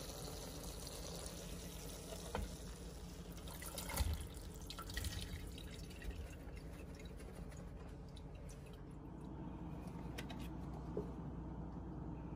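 Water trickling and dripping into a stainless-steel kitchen sink, faint, with a few knocks and clatters, the loudest about four seconds in. The water hiss thins out near the end.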